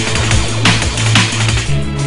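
Electronic background music with a heavy bass line and sharp drum hits, changing to a different track with sustained bass notes near the end.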